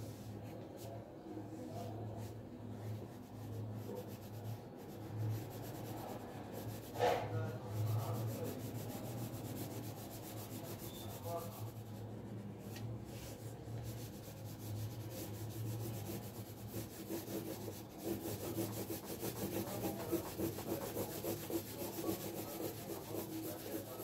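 Graphite pencil scratching and rubbing on paper as a drawing is shaded, with rapid back-and-forth strokes in the last few seconds, over a steady low hum. A brief louder noise stands out about seven seconds in.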